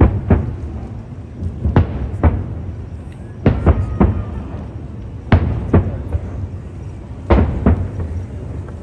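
Aerial firework shells bursting: sharp booms in pairs and threes about every two seconds, each trailing off in a rolling echo over a steady low rumble.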